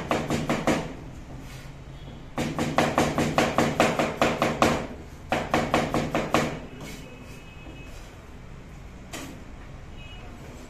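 Kitchen knife chopping fast on a plastic cutting board, in three quick runs of sharp knocks about six a second; the chopping stops a little past halfway, with one last knock near the end.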